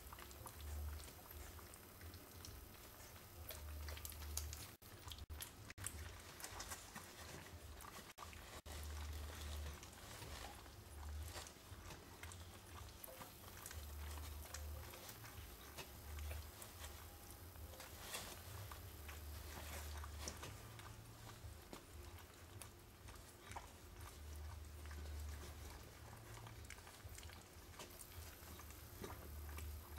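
Newborn Manchester terrier puppies suckling: faint, scattered wet smacking and small clicks from the nursing litter, with an intermittent low rumble that comes and goes in separate spells.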